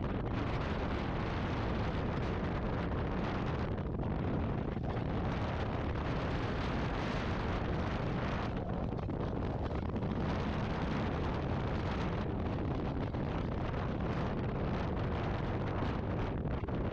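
Air rushing past a hang glider in flight, heard as steady wind buffeting on the microphone, its brighter hiss thinning and coming back every second or two.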